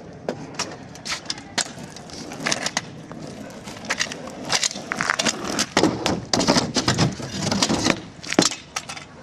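BMX bike being ridden on pavement: irregular clicks and knocks with short scrapes, and one sharper hit a little after eight seconds in.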